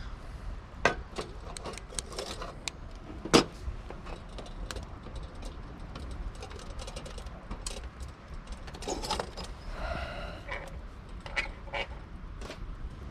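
Scattered light clinks and knocks of metal objects being handled, a few of them ringing briefly. One sharper knock comes about three and a half seconds in, and a cluster of ringing clinks comes around nine to ten seconds in.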